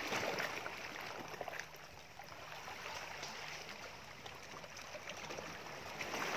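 Sea water lapping and sloshing quietly against a rocky shore, with scattered small ticks and splashes.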